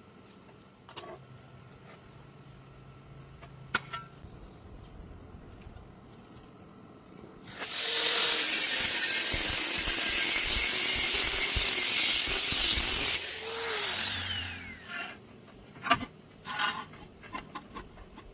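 A power tool's motor runs loudly for about five seconds with a high whine, then is released and spins down with a falling pitch; a few knocks and clicks follow.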